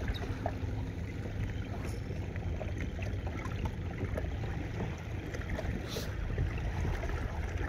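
Water lapping and splashing against a kayak moving through the water, with a steady low wind rumble on the microphone.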